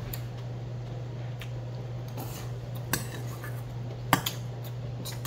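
Metal spoon clinking and scraping against a stainless steel bowl: a few sharp clinks, the loudest about four seconds in, over a steady low hum.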